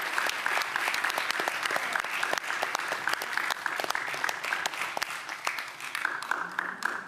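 Crowd applauding, dense clapping that thins out and starts to die away near the end.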